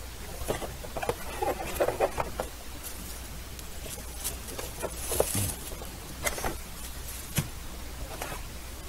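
A cardboard box being handled and unpacked: irregular scraping, rustling and light knocks of cardboard flaps and inserts, with plastic wrapping rustling as the packed parts are handled.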